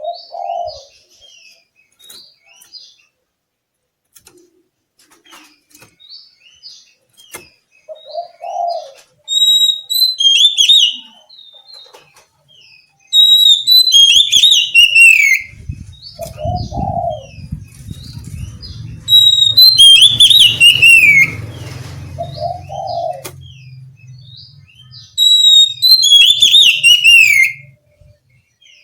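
Oriental magpie-robin (kacer) singing: loud repeated phrases, each a held high whistle that breaks into a falling slur, coming about every five to six seconds, with softer twittering notes between. A short low note recurs a few times between phrases, and a low rumble runs under the second half.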